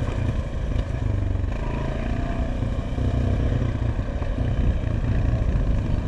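ATV engine running steadily while being ridden.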